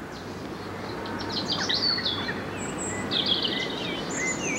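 Small garden birds singing and chirping in quick, high, twittering phrases that start about a second in and grow busier toward the end, over a steady outdoor background hiss.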